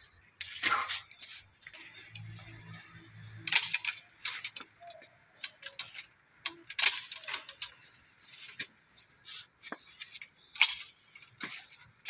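Long-handled pruning loppers cutting almond tree branches: sharp snaps and clicks of the blades closing through the wood, a series of separate cuts a second or more apart.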